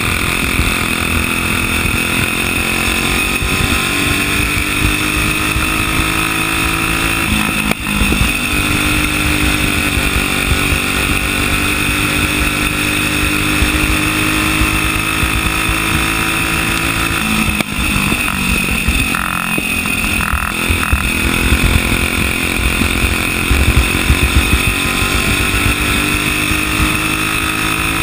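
Single-cylinder flathead racing kart engine running hard, heard onboard. Its pitch climbs steadily, then the revs fall off abruptly twice, about 8 and 18 seconds in, before building again.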